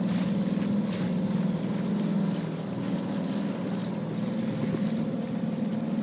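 Small motorboat's engine running at a steady speed, an even hum with no change in pitch, under a wash of water and wind noise.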